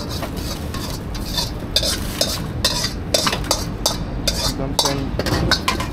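Metal ladle clanking and scraping around a steel wok as food is stir-fried over a gas burner, over a steady frying sizzle. The strikes start about a second and a half in and come irregularly, two or three a second.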